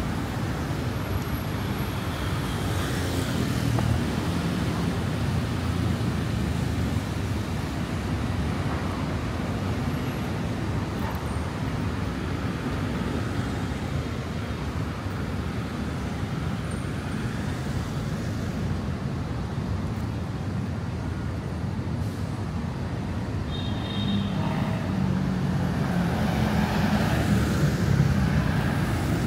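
Steady city road traffic: motor vehicles running along busy streets, heard as a continuous rumble.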